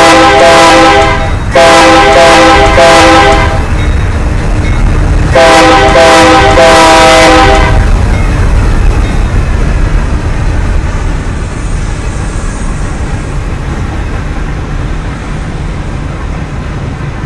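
Union Pacific GE AC4400CW locomotive sounding its multi-chime air horn: one blast ending about a second in, a second of about two seconds, and after a short gap a third of about two seconds, a horn salute to the person by the track. Under the blasts and after them the locomotive and train rumble steadily, the rumble slowly fading.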